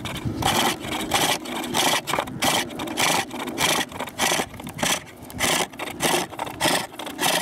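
Steel hook tool cutting into the green-wood core of a bowl spinning on a pole lathe. The cuts come as a steady rhythm of scraping strokes, about two to three a second, as the lathe spins the bowl back and forth.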